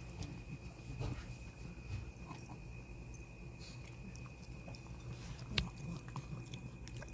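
A dog chewing and eating its food in small irregular clicks and smacks, with one sharper click about five and a half seconds in. A faint steady high tone runs underneath.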